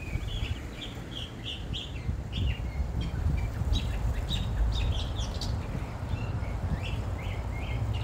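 Small songbirds chirping and singing, a quick run of short high notes throughout, over a low steady rumble.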